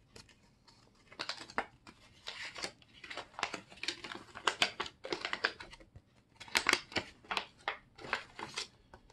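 Small clear plastic bag crinkling and a paper leaflet rustling as the folded instruction sheet is pulled out by hand, in irregular bursts of crackles beginning about a second in.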